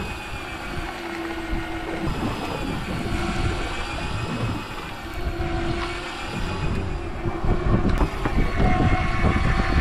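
Electric fishing reel's motor winding line in, a steady whine that slowly rises and falls in pitch as the load on the line changes, over a low rumble.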